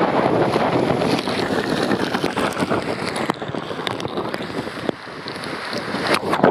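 Rushing water and wind buffeting the microphone as a rider slides fast, feet first, down a steep kamikaze water slide. It swells to a loud splash into the runout pool near the end.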